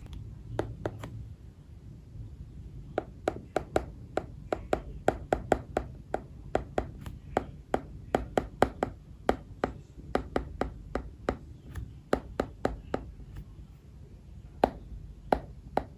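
A stylus tip tapping on an iPad's glass screen while handwriting: quick, irregular runs of sharp clicks starting a few seconds in, with a short pause near the end.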